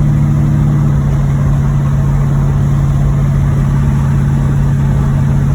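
1986 Chevrolet Monte Carlo SS's V8 engine running steadily under way, a steady drone. The engine has a rod knock in its bottom end.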